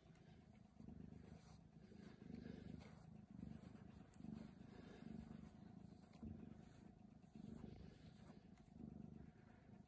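Domestic cat purring faintly, in slow swells about once a second.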